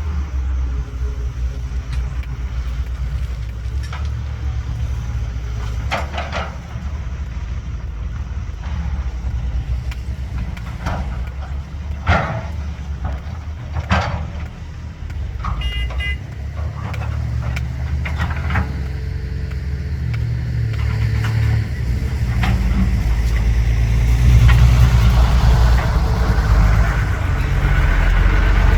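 Caterpillar 320BL excavator's diesel engine running steadily, with several loud metal clanks and knocks a few seconds apart. There are short high beeps a little past the middle, and the engine works harder and louder over the last several seconds.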